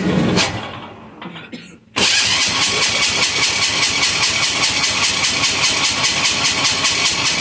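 186FA single-cylinder air-cooled diesel engine being cranked by its electric starter: a short loud burst that fades, then about two seconds in steady, rhythmic cranking that turns the engine over without it catching. The owner later finds the engine's run lever was left in the off position.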